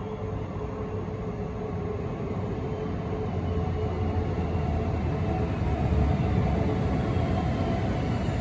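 Stockholm electric commuter train pulling into an underground station platform. Its rumble grows steadily louder as it approaches, with a faint steady humming tone over it.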